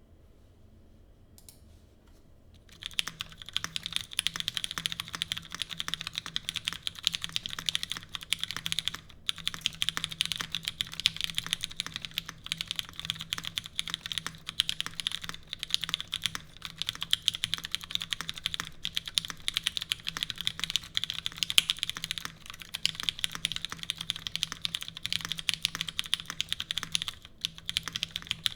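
Continuous typing on an RBB custom mechanical keyboard with broken-in, lubed Cherry MX Brown switches, a full aluminium plate, no dampening foam and GMK keycaps: a dense stream of key clacks. The typing starts about three seconds in and breaks off briefly twice.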